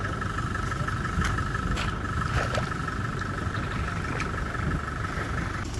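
Pickup truck engine running steadily, with a steady high-pitched tone over it that cuts off suddenly near the end.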